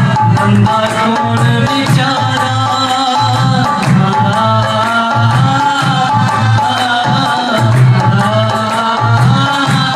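Punjabi-style devotional music: a dholak hand drum beating a steady folk rhythm under a harmonium's sustained reed chords.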